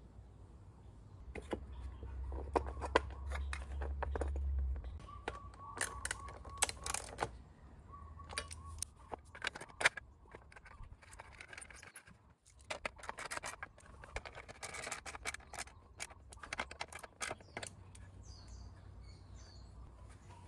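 Light metallic clicks and clinks of bolts and a metal license plate being handled and fitted onto a scooter's rear fender, with birds chirping.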